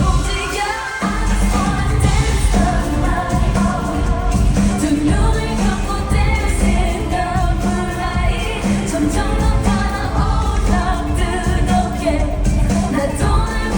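Live pop music: a woman singing over a loud band track with heavy bass, played through a concert hall's sound system.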